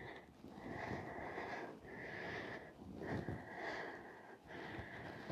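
A woman breathing in and out through her nose while exercising, about four faint, evenly paced breaths close to the microphone.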